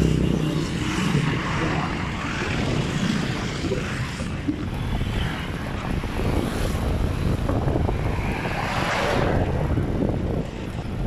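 Wind buffeting a phone's microphone while riding a bicycle along a road: a loud, steady rushing noise, swelling briefly about nine seconds in.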